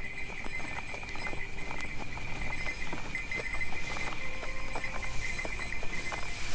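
Sleigh ride: a horse's hooves clip-clopping in a steady trot, with sleigh bells jingling continuously.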